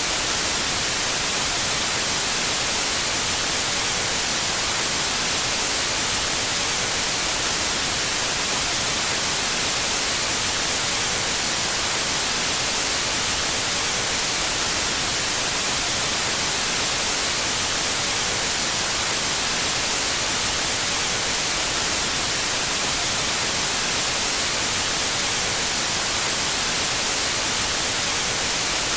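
Steady static hiss, even and unchanging, strongest in the upper frequencies, like white noise from a broadcast with no programme.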